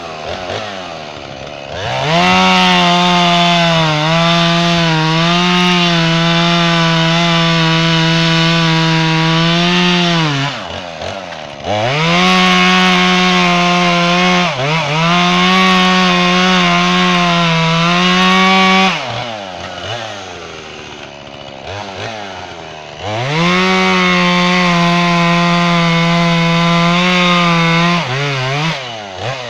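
Jonsered chainsaw held at full throttle through three long cuts in red oak, each lasting six to eight seconds, its pitch sagging a little as the chain loads up. Between cuts the engine drops back toward idle before revving up again.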